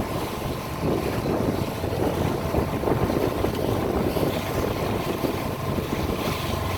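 Boat engine running steadily while under way, with wind buffeting the microphone.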